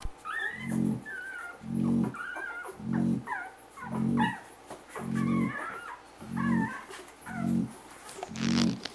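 A sleeping pet snoring in an even rhythm, about one snore a second. Thin, wavering high whistles come between the snores.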